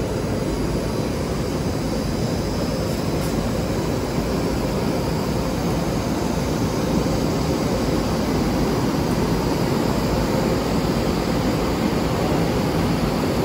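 Dong Hang multi-unit flexographic printing press running at speed: a steady, even machine drone of rollers and drives, with a faint thin whine over it.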